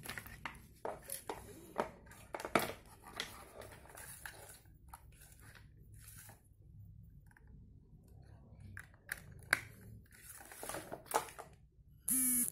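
Plastic wireless charging dock and its cable handled by hand: scattered clicks, taps and rustles. Near the end a brief loud buzzing tone cuts off sharply.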